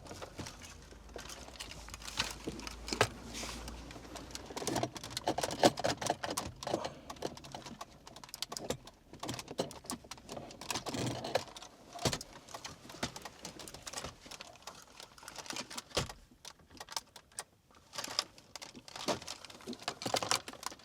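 Wiring plug being worked loose and unplugged from the back of a car stereo: scattered plastic clicks, rattles and handling noise, on and off throughout.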